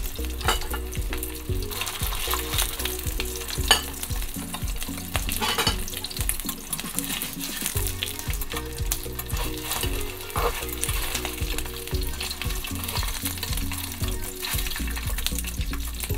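Frozen buckwheat crepe rolls (memil jeonbyeong) sizzling and crackling steadily in oil on an electric griddle. A few sharp clicks come as a metal turner is set against the pan to flip them.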